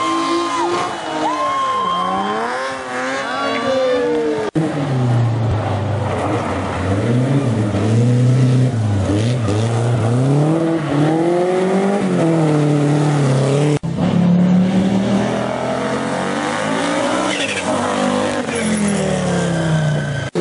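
Rally car engines revving hard, the pitch climbing and dropping repeatedly through gear changes and lifts, with short cuts to different cars about four and fourteen seconds in.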